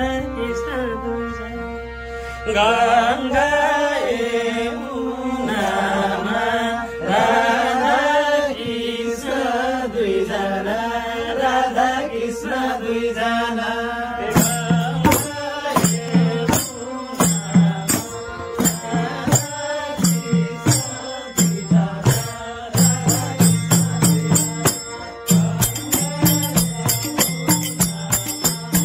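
Men singing a Nepali devotional bhajan over a steady held drone note. About halfway through, hand clapping and percussion come in with a steady beat.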